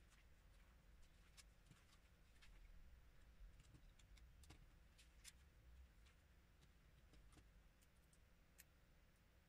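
Near silence with faint, scattered clicks of plastic LEGO pieces being handled and pressed together on a small vehicle.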